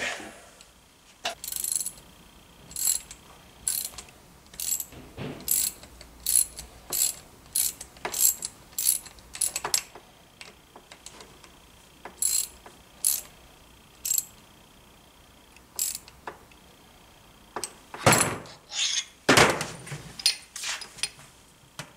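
Short metallic clicks and rattles from a moped engine crankcase being turned over and worked by hand, roughly two a second, with a few louder knocks near the end.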